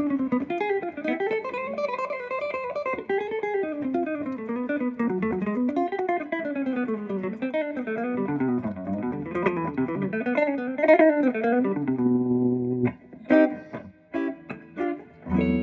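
Guitar being picked: a fast run of notes that winds up and down in pitch, then a held chord about twelve seconds in, a few separate plucked notes, and a fresh chord rung near the end.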